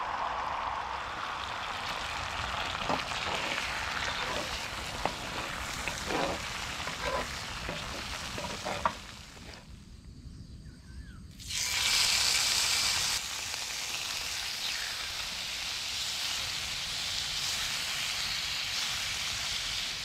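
Beaten eggs sizzling in hot oil in a cast-iron skillet, with a few sharp knocks of a utensil as they are stirred. After a brief drop about ten seconds in, a louder burst of sizzling, then steady sizzling of sliced meat frying in the pan.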